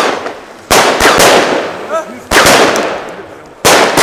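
Lesli Showbrick Mixed 19 firework battery firing shells into the air. Four loud bangs come about a second to a second and a half apart, and each trails off in a hiss as the stars burn out.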